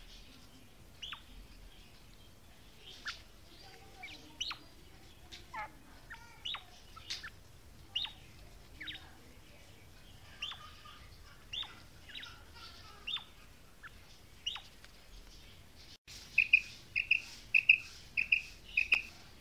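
Female quail calling: short, sharp whistled notes that sweep downward, roughly one a second. About sixteen seconds in, after a cut, a louder, faster series of call notes follows at about two a second.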